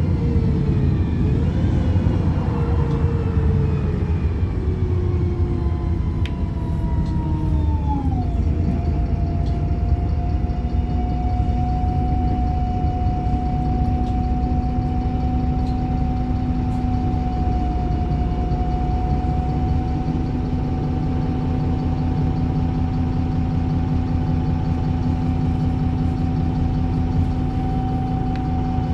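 Wright Pulsar bus's engine and drivetrain running, with whining tones that fall in pitch for the first eight seconds or so as it slows. After a sudden drop at about eight seconds, the whine holds at a steady pitch over an even engine rumble.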